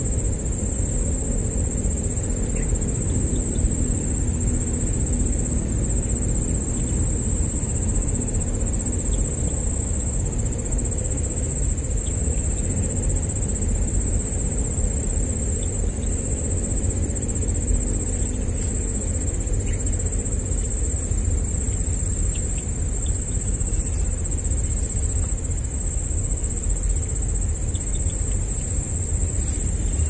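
Insect trilling on one high, unbroken note over a steady low rumble.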